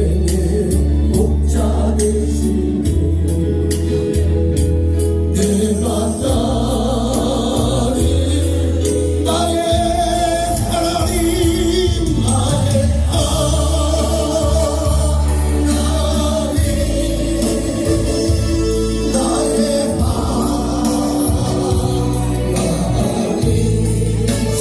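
Gospel worship music with a steady beat and heavy bass; voices singing the melody come in after a few seconds.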